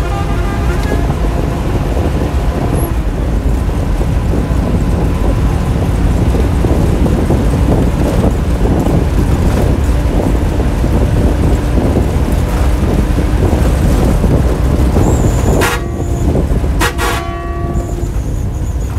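A passenger bus's diesel engine running with road and cab rattle noise, heard from inside the driver's cab while driving. The horn sounds briefly near the end, with a few sharp clicks.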